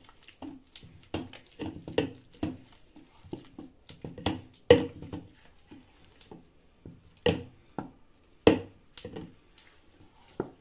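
A hand mixing a wet, spiced flour-and-egg marinade paste in a stainless steel bowl: irregular squelches and slaps of the paste, with sharper knocks against the steel, the loudest a little before the middle and twice in the last third.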